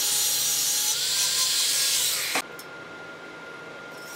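Angle grinder with a thin cut-off disc grinding through a metal tube, a steady harsh hiss with a faint whine in it. It cuts off suddenly about two and a half seconds in, leaving only a faint steady hum.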